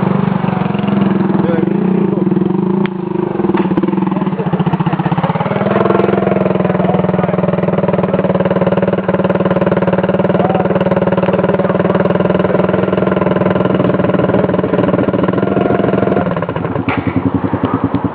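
Dirt bike engine running under throttle on a trail; its note climbs about five seconds in, holds steady, then falls off near the end.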